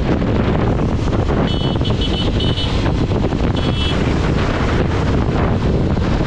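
Wind rushing over the microphone of a motorcycle riding at speed, a steady loud roar with the bike's running underneath. A high-pitched vehicle horn gives a quick run of short beeps about a second and a half in, and one more beep near the middle.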